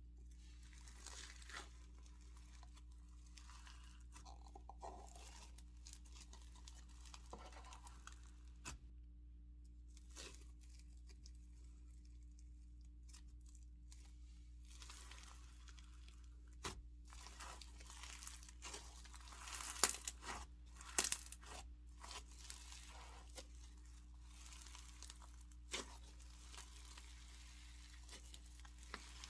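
Hands mixing a snow fizz slime, giving faint crackling and crunching with small scattered clicks, busiest and loudest about twenty seconds in.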